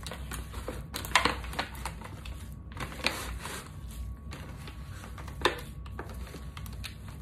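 Hands squishing and kneading a raw ground-beef meatloaf mixture in a thin disposable aluminium foil pan: irregular wet squelching with the pan crinkling, and a few louder squelches along the way.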